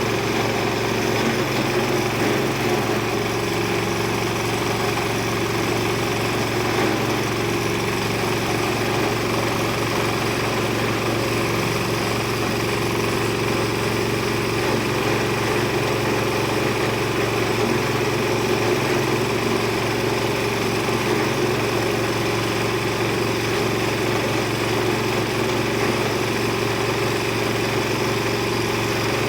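Multifunction chopper-grinder machine running steadily on its small engine, with an even hum that does not change.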